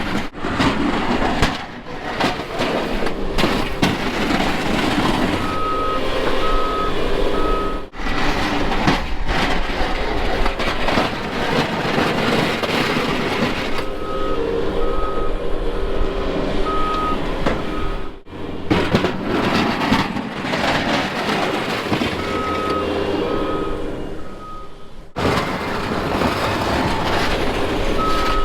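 Backup alarm on snow-plowing equipment beeping in repeated spells over the steady rush of engine and wind noise, with the sound breaking off abruptly several times.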